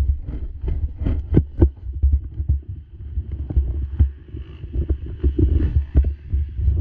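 Wind buffeting the microphone of a helmet-mounted camera: an uneven low rumble that gusts up and down, with many small clicks and knocks as the helmet moves.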